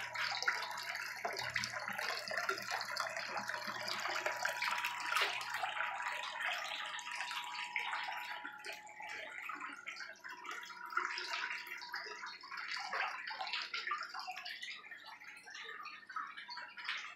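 Water rushing steadily down a plastic rain-gutter sluice over ribbed matting and splashing into a tub, with a faint steady hum beneath.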